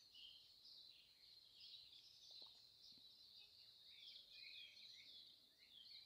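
Faint chorus of several songbirds chirping continuously, many short high-pitched calls overlapping.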